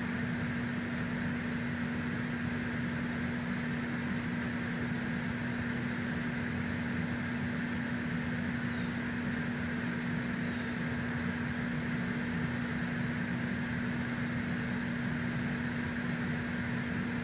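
Steady mechanical hum with one constant low tone and a hiss above it.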